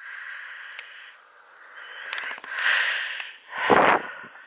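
Close rustling and handling noise, with foliage brushing near the microphone, over a steady hiss of open-country background. It swells about three seconds in and ends in a short, loud scuff just under a second before the end.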